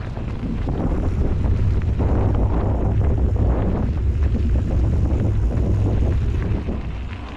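Wind buffeting the microphone of a mountain biker's camera while riding, a loud low rumble that eases near the end.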